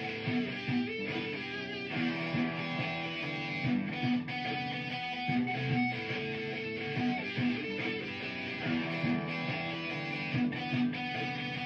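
Amplified electric guitar playing an improvised solo over a repeating looped guitar part.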